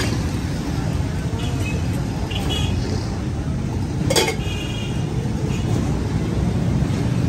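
Steady low rumble of a busy street, with a couple of brief faint high chirps early and one sharp clink of crockery about four seconds in.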